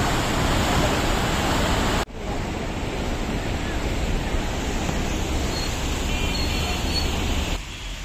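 Steady outdoor rushing noise, largely wind on the microphone over open water. It changes abruptly to a softer rush about two seconds in, and drops again near the end.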